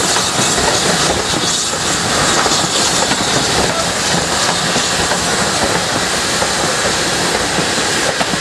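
Passenger coaches of a steam-hauled train rolling past close by: a steady rumble and clatter of wheels on the rails, with steam hissing throughout.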